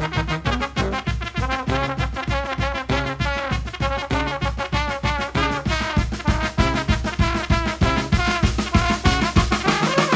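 Brass band playing an up-tempo instrumental passage: trumpets and trombones over a quick, pulsing low bass line with drum strokes.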